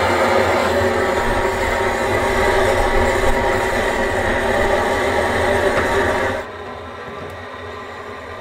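Propane gas torch blowing a steady flame into firewood in a stove's firebox to light it. The noise cuts off abruptly about six seconds in, leaving a quieter steady rush.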